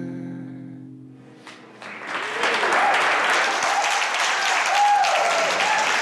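The last chord of a solo acoustic guitar song dies away, and about two seconds in the guests break into loud, steady applause with a few voices calling out over it.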